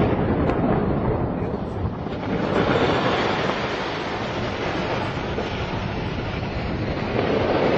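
Steady rumble from an explosively felled industrial chimney tipping over just after the charges at its base have fired, with wind buffeting the microphone.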